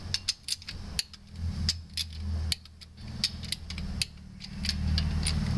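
Torque wrench ratcheting on cylinder-head bolts: a run of sharp, irregular clicks as the bolts are rechecked at 44 ft-lb. A steady low hum runs underneath.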